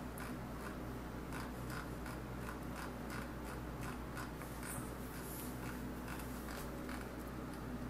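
Computer mouse scroll wheel clicking, a few light clicks a second, over a steady low hum.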